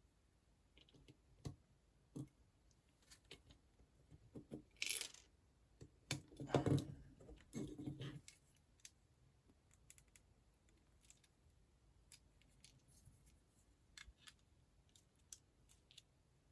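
Small plastic building bricks being handled and pressed together: scattered light clicks, with a short rustle about five seconds in and a louder clatter of pieces shortly after.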